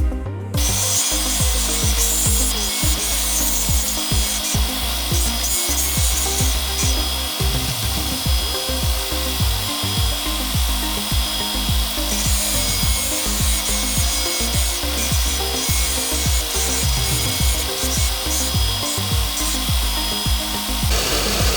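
A power tool grinding or sanding steadily while the knife is shaped, under background music with a steady beat.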